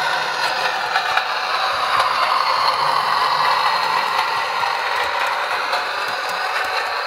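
Sound decoder in a Bachmann Class 101 DMU model playing its Howes diesel railcar engine sound through the model's small speaker, thin with little bass, swelling for a few seconds in the middle, mixed with the clatter of the model running on the track.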